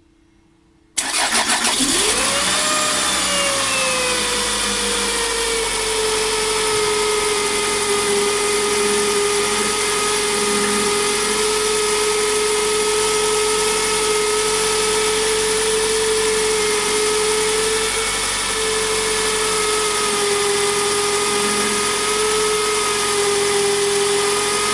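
Toyota Estima ACR30's engine cranks and starts about a second in, then idles with a loud, steady whine that climbs sharply on start-up and settles lower as the idle comes down. The owner puts the whine down to the water pump: it makes little noise turned by hand but gets loud once the belt drives it.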